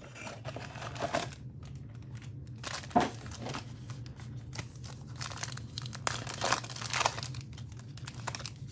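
Cardboard blaster box of Illusions football cards being opened and its foil card packs handled and torn open: irregular crinkling and tearing with a few sharper crackles.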